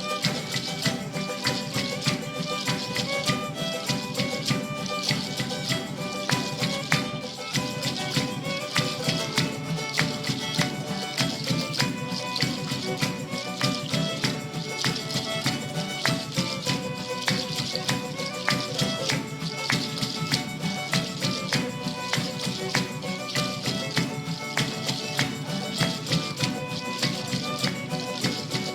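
Live festive Andean folk-style band music: pitched melody lines over percussion keeping a steady, quick beat.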